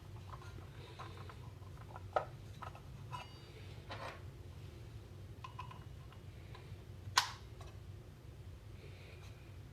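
Small metal clicks and taps of a hex key tightening the blade nut onto a circular saw's arbor, with two sharper clicks, one about two seconds in and one about seven seconds in.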